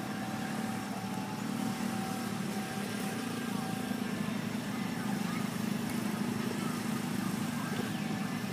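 A steady low engine hum.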